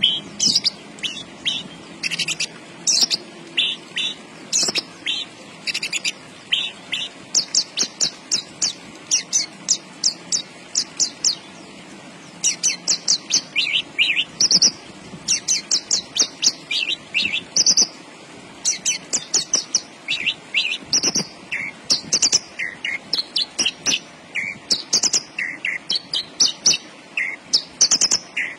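Branjangan (Horsfield's bush lark) singing in full voice: rapid strings of short, high chirping notes in phrases, with brief pauses between them.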